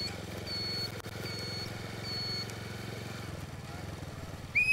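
Motorbike engine running with a steady low note, while a short high beep repeats about every 0.8 seconds. Near the end a loud police whistle blast begins, signalling a traffic stop.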